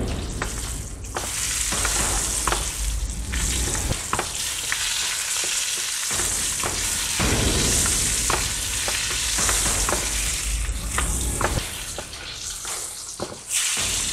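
Lamb shoulder chops sizzling in foaming butter in a nonstick frying pan while they are basted with a metal spoon; the spoon clicks and scrapes against the pan many times over a steady high sizzle.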